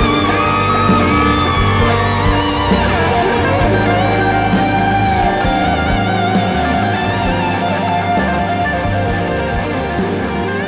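Rock band playing an instrumental passage: an electric guitar lead with wavering vibrato over bass and drums, the cymbals struck about twice a second. The whole mix slowly gets quieter toward the end.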